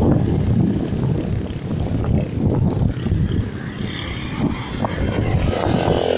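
Road traffic and wind on the microphone: a loud, uneven low rumble of motorbike and car engines.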